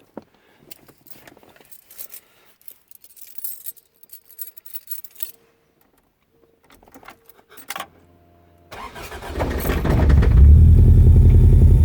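Faint rustling and small clicks, then about nine seconds in the 1985 Toyota Corolla AE86 Trueno's four-cylinder engine is started: a brief hum, then it catches and settles into a loud, steady run with a rough pulsing beat.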